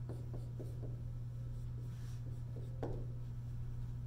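Dry-erase marker writing on a whiteboard: a run of short scratchy strokes in the first second and a few more about three seconds in, over a steady low hum.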